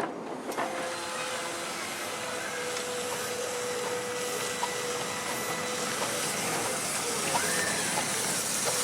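Miniature steam locomotive letting off steam: a steady hiss that swells slightly near the end.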